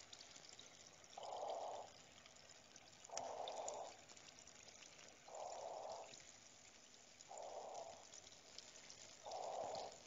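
Relaxation soundscape of cave water: faint dripping and trickling throughout, with a soft hush of breathing-like noise that swells and fades five times, about every two seconds.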